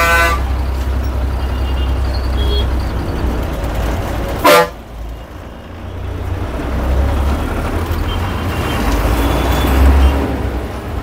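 Bus traffic: a bus engine running close by with a low rumble, a horn blast cutting off just as it begins and a short, loud horn toot about four and a half seconds in. The engine noise briefly drops after the toot and grows again near the end.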